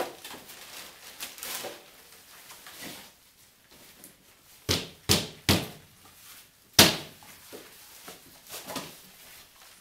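Broken slabs of popcorn-ceiling drywall being handled and packed into black plastic bags: plastic rustling, with sharp knocks of the pieces, three close together about halfway through and the loudest a little over a second later.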